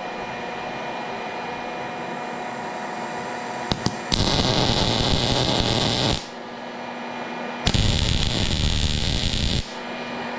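Two arc-welding beads laid on a preheated hardened-steel hay rake tine, each a steady crackling hiss lasting about two seconds: the first begins about four seconds in, the second about a second and a half after the first stops. A steady hum runs underneath.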